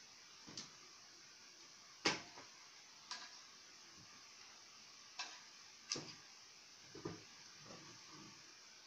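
Irregular light clicks and knocks, about eight of them, the loudest about two seconds in, from hands handling an opened CRT television's circuit board and wiring, over a faint steady hiss.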